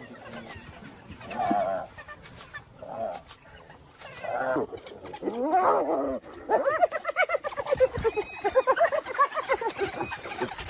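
A pack of African wild dogs calling with high, rapid twittering chirps. There are a few scattered calls at first, and from about six seconds in they run into a dense, excited chorus.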